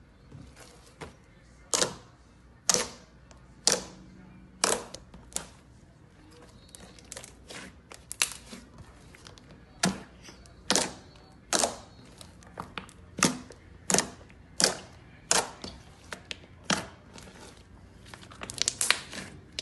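Fluffy slime popping and crackling as hands press, poke and stretch it: sharp pops about once a second with softer crackles between, and a quick flurry of crackles near the end.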